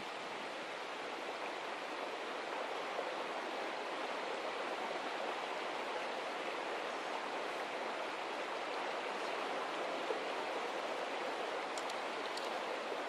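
Steady flowing of a small river's current over rocks.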